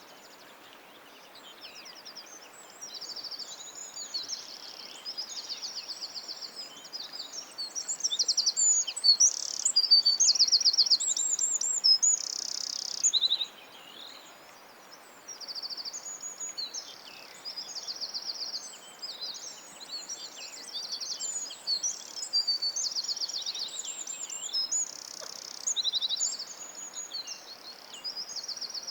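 Songbirds singing: a busy run of high, quick trills and chirps, one phrase after another, over a faint steady hiss. Brief lulls come near the start and about halfway.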